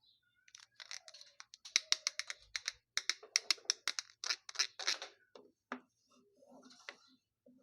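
Packaging being handled up close during an unboxing: a quick, irregular run of sharp clicks and crackles for about five seconds, thinning out to a few softer taps near the end.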